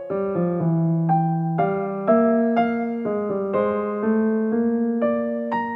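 Background music: a gentle piano melody over held chords, notes struck about twice a second and left to ring out.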